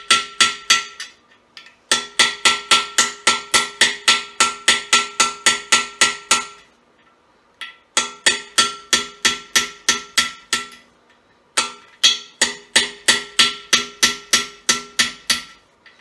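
A hammer rapidly striking a screwdriver set against a steel core (freeze) plug in a small-block Chevy's cast-iron block, driving the screwdriver in to break the plug loose. The metallic ringing strikes come about four a second in runs, with short pauses between them. The plug is not yet breaking loose.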